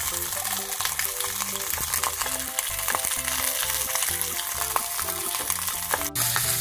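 Half-dried red tilefish (okdom) frying in oil in a non-stick frying pan: a dense, steady sizzle with a short break near the end, over a simple background music melody.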